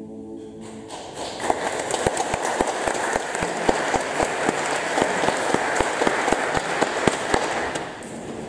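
The last held chord of a song's accompaniment ends, and about a second in a congregation breaks into applause. The many hands clap steadily for about seven seconds, then die away near the end.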